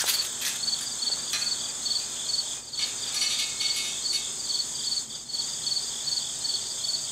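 Insects chirping: a steady high trill with a pulsing chirp about three times a second, typical of crickets.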